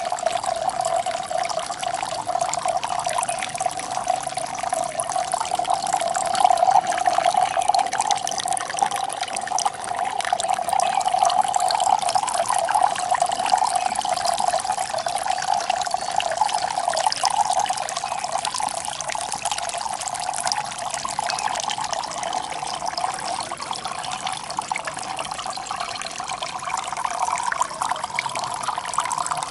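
Water splashing steadily from a stoneware-jar fountain: a thin jet pours into the mouth of a glazed stoneware jar, and the splashing carries a steady hollow note.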